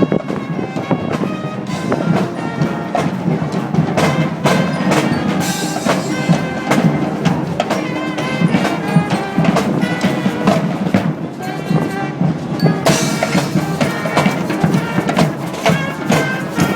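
Live brass street band playing: horns holding and changing notes over busy drums and percussion.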